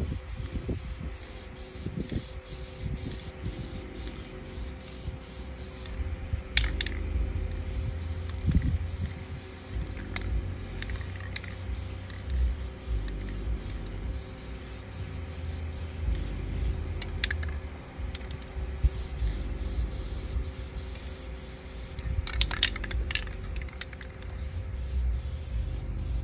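Aerosol spray paint can hissing in several short bursts, over a steady low rumble.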